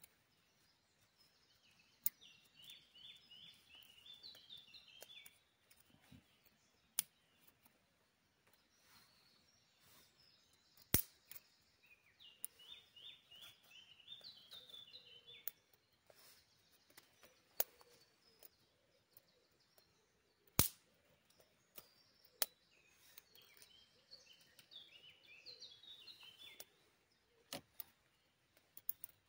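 Scattered sharp pops and cracks from a wood campfire, with a songbird repeating the same descending trilled phrase three times, about ten seconds apart.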